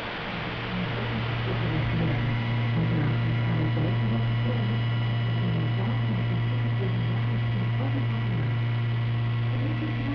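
CNC milling machine running, its spindle driving an end mill through a plate: a steady low hum with fainter steady higher tones over a noisy hiss. It grows louder about a second in, then holds steady.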